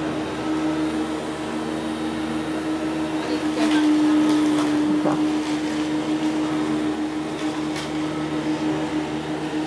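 Corded electric garden tool's motor running with a steady, even hum that holds one pitch, swelling slightly about four seconds in.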